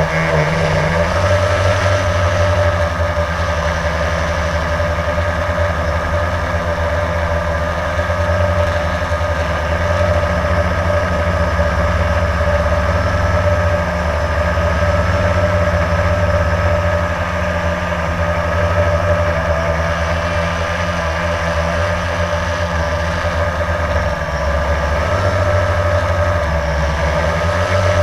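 Blade drone's electric motors and propellers running steadily in flight, a loud, even buzz with a high whine whose pitch shifts slightly near the start and end as the drone manoeuvres.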